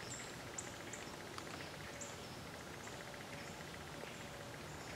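Quiet autumn woodland background with a few faint, short high chirps and a faint rapid ticking trill between about one and three seconds in.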